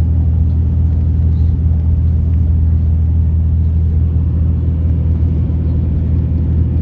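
Pickup truck cruising at highway speed, heard from inside the cab: a steady, unchanging low engine and road drone.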